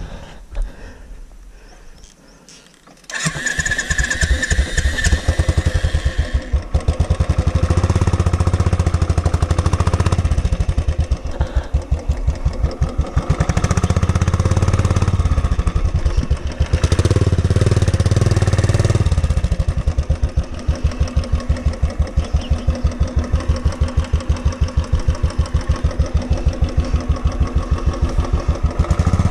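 Royal Enfield Bullet 350's single-cylinder engine catching about three seconds in after a few faint knocks, then running with a steady beat of firing pulses that swells and eases a few times.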